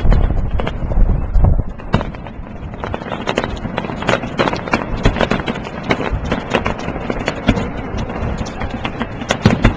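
New Year's fireworks and firecrackers going off in many rapid, irregular bangs and crackles, with a heavy low rumble during the first second and a half.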